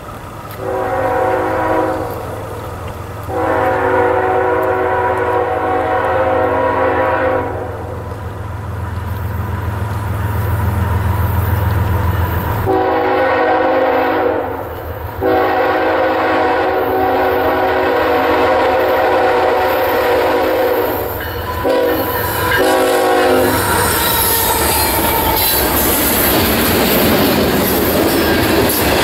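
Approaching diesel freight locomotive sounding its multi-chime air horn: a short blast, a long one, then a short and a very long blast and a brief final toot, over a low engine rumble that grows louder. Near the end the train passes close by as a steady rush of wheel and rail noise from the tank cars.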